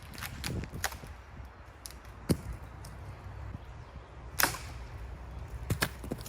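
Dead branches cracking and snapping as they are pulled down from a tree for firewood: a few sharp cracks, the loudest about two-thirds of the way in, among smaller snaps.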